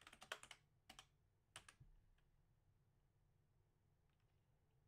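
Faint computer keyboard typing: a quick run of key clicks in the first half second, then two single clicks over the next second, after which it goes nearly silent.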